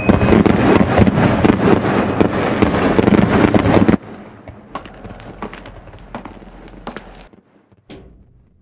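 Dense, loud crackling and popping that cuts off suddenly about four seconds in, followed by sparser, quieter crackles that thin out to a few single clicks near the end.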